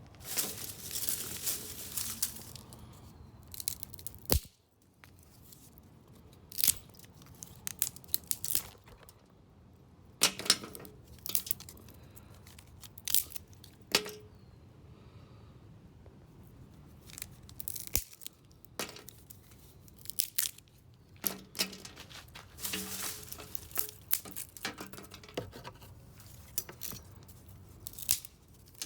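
Tree branches being snapped: a series of sharp cracks and splintering crackles at irregular intervals, some single snaps and some clusters of breaking wood.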